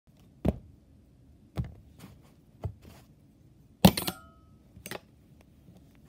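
A plastic lunch tray and metal cutlery being set down on a bed: about five separate knocks and taps, the loudest a little under four seconds in with a brief metallic ring after it.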